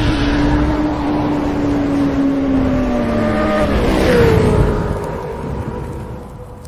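Sport-bike engine sound effect: a steady engine note that slowly sags in pitch, jumps higher about four seconds in, then fades away.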